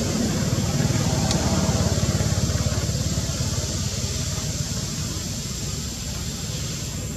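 A motor vehicle's engine running low and steady with a rapid low throb, gradually fading away.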